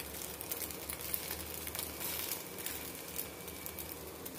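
Rolled egg omelette frying gently in a little oil in a nonstick pan: a soft, steady sizzle with scattered faint crackles.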